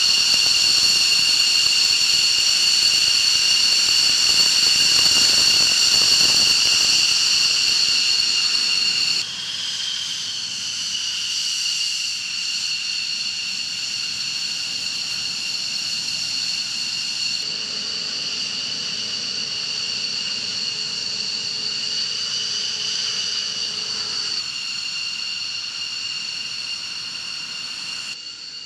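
Jet engine running with a steady high-pitched whine over a rushing roar. It drops abruptly in loudness about nine seconds in, and the sound changes again at a few later points.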